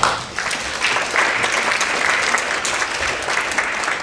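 Audience applauding: many hands clapping together in a steady patter.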